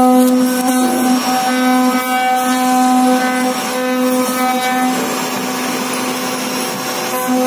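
CNC router spindle running with a steady whine while its bit carves a relief pattern into a wooden panel, over a rasping cutting noise. From about five seconds in the whine weakens and the cutting noise takes over, and the whine returns near the end.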